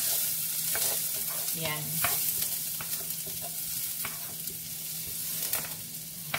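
Chopped onion sizzling in hot oil in a frying pan, stirred with a wooden spoon that gives short scraping taps against the pan now and then.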